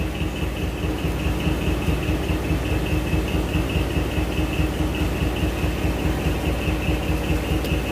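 An engine idling steadily, with a low even throb, a fast regular pulse and a constant faint whine.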